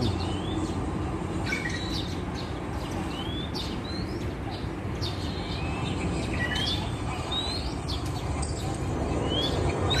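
Wild birds calling from the trees: short rising chirps repeated every second or so, over a steady low background hum.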